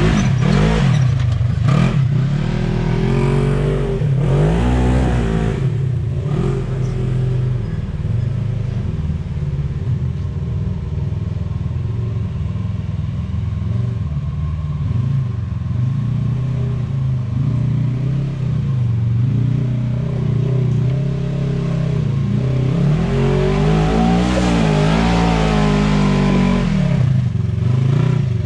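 Off-road vehicle engine revving, its pitch rising and falling several times in the first six seconds, running more steadily through the middle, then a further run of rising and falling revs near the end.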